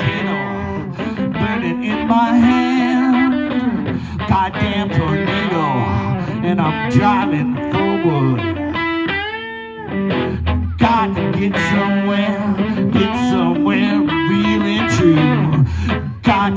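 Live electric guitars playing an instrumental passage, melodic lead lines over a steady low part; about nine seconds in, a single held note wavers up and down in pitch before the full playing resumes.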